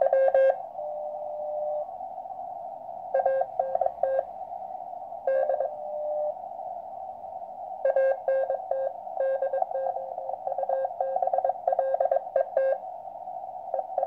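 Morse code (CW) being received on a QRP Labs QCX transceiver: a single tone of about 600 Hz keyed in quick dots and dashes, in spurts with short pauses, over the receiver's narrow band of hiss, heard through a small external speaker. The incoming signal spells out the other operator's antenna and rig ('ANT DOUBLET ES USING FULL QSK').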